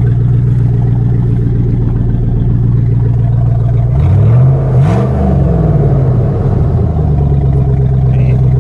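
Pickup truck engine running with no exhaust system fitted: a loud, steady idle, with one rev about four seconds in that rises and falls back over about two seconds.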